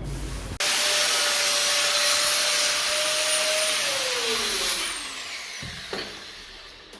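An electric motor-driven machine runs at full speed with a loud airy hiss and a steady whine. A few seconds in it is switched off: the whine falls in pitch and the hiss fades as it spins down, with a light knock near the end.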